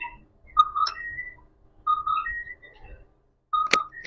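Short high two-note tones, a lower note followed by a higher one, heard three times, with a sharp click near the end.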